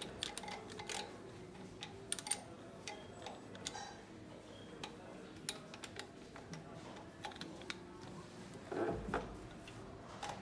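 Scattered light metal clicks and taps from hand work on the cylinder head of a Renault K9K 1.5 L diesel engine, fitting the compression tester to the next cylinder, with a duller knock about a second before the end.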